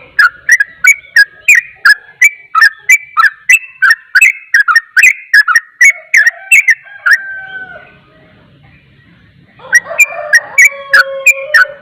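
Yellow-vented bulbul singing a rapid 'ropel' song: a fast string of sharp whistled notes, about three or four a second, alternating between two pitches. The song breaks off briefly about two-thirds of the way through, then resumes with a fuller chattering phrase and more rapid notes.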